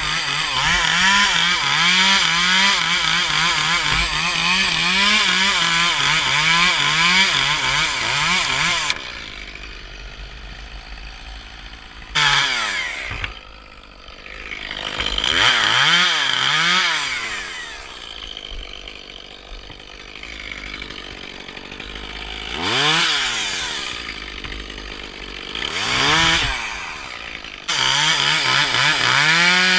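Gas chainsaw cutting wood at full throttle, its pitch wavering under load, for about nine seconds. It then drops to idle, broken by several short revs up and back down, and comes back to full throttle near the end.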